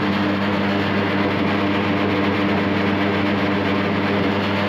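Electric chicken-plucking machine running, its built-in motor and pulley spinning the stainless drum of rubber fingers as chickens are plucked inside. It makes a steady hum with a whirring rush over it, and runs very smoothly.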